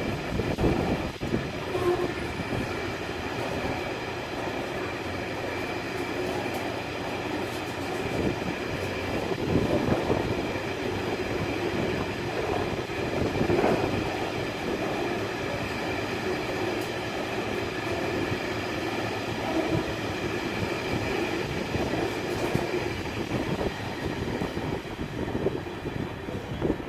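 Freight train wagons rolling steadily past at the platform, their wheels clattering over the rail joints, with a steady high ringing note from the wheels and rails.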